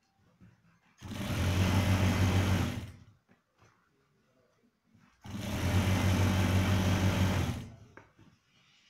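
Electric sewing machine running in two bursts of about two seconds each, stitching a trouser-leg seam, starting and stopping between them.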